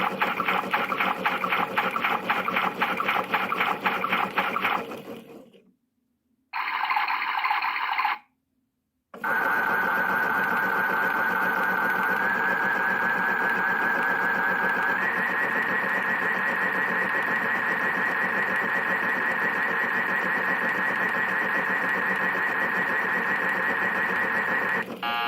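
Battery-powered PlayGo toy washing machine running through its cycle: a fast pulsing motor-and-effect sound that fades out about five seconds in, a short electronic buzz, then a steady warbling electronic tone over a hum that steps up in pitch twice.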